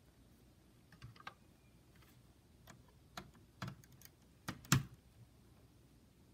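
Scattered light clicks and taps, some in quick pairs, the loudest about five seconds in.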